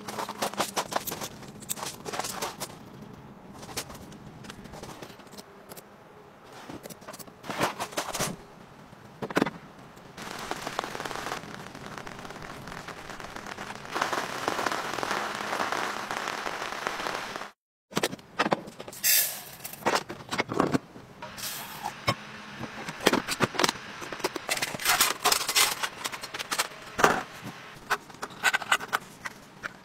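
Clicks, rustles and clinks of camp gear being handled, with a stretch of steady hiss in the middle that cuts off suddenly. Near the end the clinks come from a small wire stove stand being set over a tin burner.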